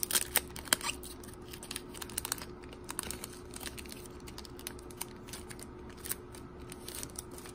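Foil wrapper of a Topps trading-card pack crinkling and tearing as it is peeled open by hand: a run of small, irregular crackles.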